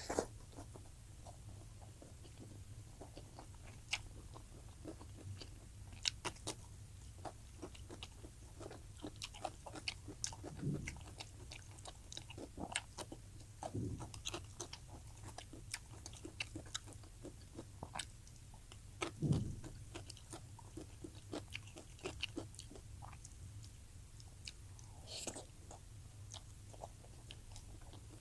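Close-miked eating: a person chewing and biting food with wet mouth clicks and smacks at an irregular pace, over a faint steady low hum.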